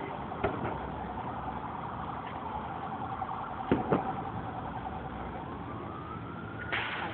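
Fireworks bursting in a few sharp pops, the loudest pair close together about four seconds in, over a steady siren wail whose pitch rises near the end.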